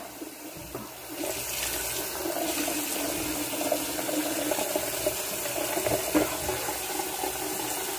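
Running water, a steady rush that gets louder about a second in and then holds even.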